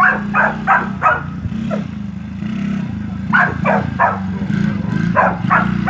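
A dog barking in three quick runs: four barks, then three, then two. Under them runs the steady drone of a Coolster 110 ATV's small single-cylinder four-stroke engine, shifting a little in pitch.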